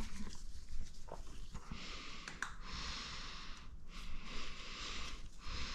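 A person breathing close to the microphone: slow, hissing breaths about every second and a half, with a few faint clicks of small parts being handled.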